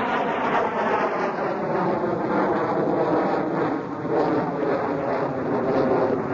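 Jet fighter flying overhead, its engine noise a loud, steady rushing sound that slowly shifts in tone as the aircraft passes.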